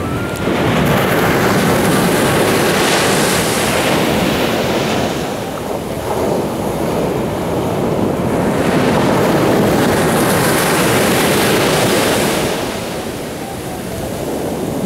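Sea surf breaking and washing up a sandy beach, a steady rush of water that swells and eases in long surges as waves come in and draw back.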